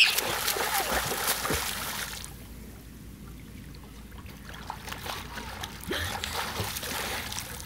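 Pool water splashing as children slap the surface with their hands and swim. The splashing dies down about two seconds in and picks up again near the end.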